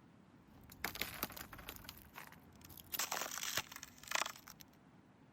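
Footsteps crunching over frozen ground, a run of uneven steps from about one second in to past four seconds.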